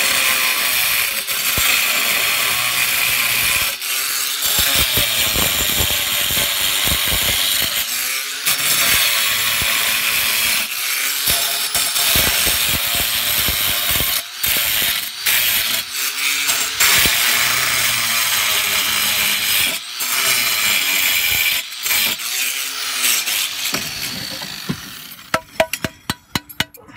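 Angle grinder with a cracked diamond blade cutting into a cement roof tile: a harsh, continuous grinding that eases off briefly every few seconds as the cut is worked, then stops near the end.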